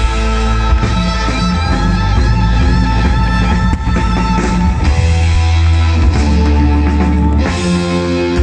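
Loud rock music with guitar and drums playing over the fireworks show's sound system, with a single sharp firework crack about halfway through.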